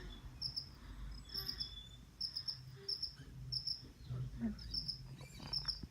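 A cricket chirps in short, high pulses about twice a second. Soft, low snoring breaths from a sleeping person come and go beneath it.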